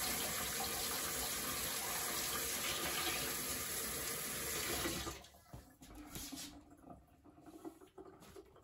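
Kitchen tap running hot water into the sink, with a knife held under the stream, for about five seconds, then turned off. A few faint clicks and knocks follow.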